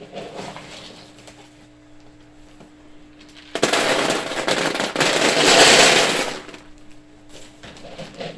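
Pellet bedding poured into a hard plastic kiddie pool: a dense rattling shower of pellets hitting the plastic and each other, starting suddenly a few seconds in and lasting under three seconds before tailing off.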